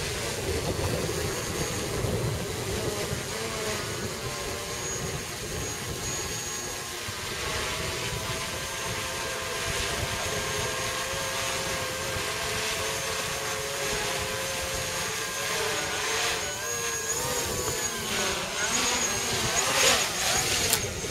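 3D-printed Mavic-clone quadcopter flying: its motors and propellers make a steady whine of several pitches. The pitch wavers and shifts more toward the end as the drone comes down low.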